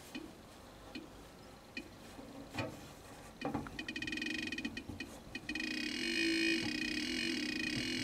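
Funway 1 sound-effects-generator kit's light-controlled oscillator, clicking through a small speaker. Faint single ticks like a dripping tap speed up into rapid clicking about three and a half seconds in, then merge into a continuous buzzy tone as the tin's lid is lifted and light reaches its light-dependent resistor: the more light, the faster the clicks.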